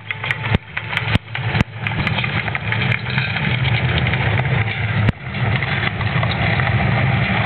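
Loud, steady low rumble from the projection show's sound system, with several sharp clicks in the first two seconds and another about five seconds in.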